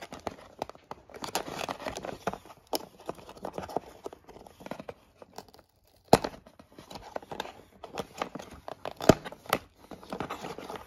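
Paper and cardboard packaging crinkling and rustling as a braided USB-C to Lightning cable is worked out of its paper band and cardboard compartment, with sharp clicks and taps throughout, the loudest about six and nine seconds in.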